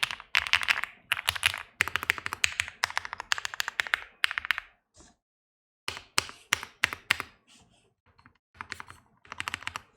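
Typing on a Mr. Suit custom mechanical keyboard with lubed UHMWPE-stem NovelKeys Cream linear switches: fast runs of keystrokes in bursts, stopping for about a second around the middle, with sparser strokes and a short lull near the end.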